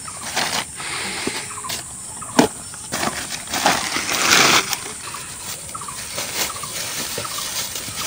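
Woven plastic sack and plastic bag rustling and crinkling as they are handled, in irregular bursts with the longest and loudest about four seconds in, and a sharp knock a little before that. Short faint calls sound in the background.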